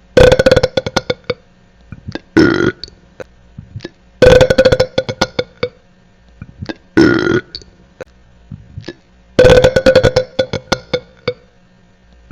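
A person burping loudly five times in about twelve seconds. Long crackling burps alternate with short ones.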